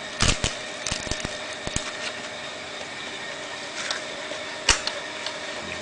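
Banana leaf crackling and rustling in the hands as it is folded into a botok parcel, a handful of short crisp clicks and crackles, most of them in the first second or so. A steady background hum with a few faint constant tones runs underneath.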